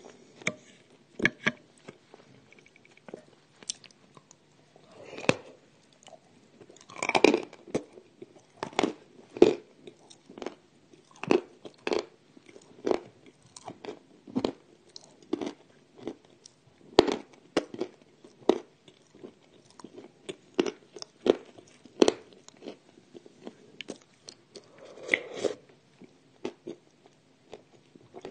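Close-miked biting and chewing of edible Ural clay: sharp, crisp crunches about one to two a second, with thicker bursts of crunching twice.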